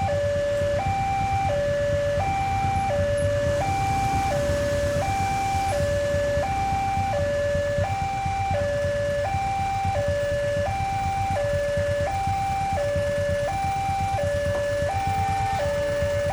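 Railway level-crossing warning alarm sounding a steady two-tone hi-lo signal, the tones alternating about every 0.7 seconds, warning of an approaching train. A low rumble lies underneath.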